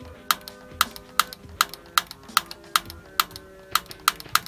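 Long-nosed utility lighter's piezo igniter being clicked over and over, about two to three sharp clicks a second, at a galley gas stove burner that won't light because no gas is getting through: a gas connection problem.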